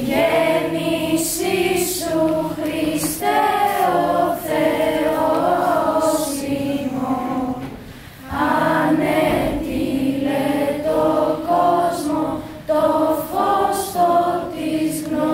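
A choir of teenage schoolgirls singing, with a short break between phrases about eight seconds in.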